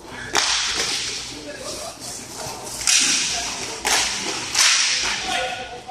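A run of sharp cracks from hockey play on a sport-court rink: sticks, puck and boards being struck. There are about four loud hits, each ringing on and dying away over about a second in the hall.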